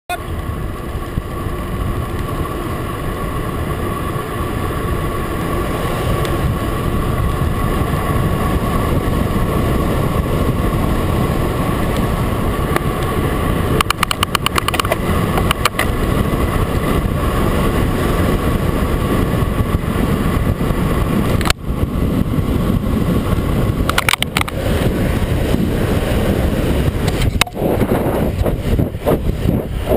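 Wind and tyre noise on a road bike descending fast on smooth pavement, picked up by a GoPro hung under the handlebars, with a brief burst of rapid ticking about halfway. About two-thirds of the way in a sharp crack marks the camera mount breaking, and the tethered camera then swings loose with irregular knocks and rattles.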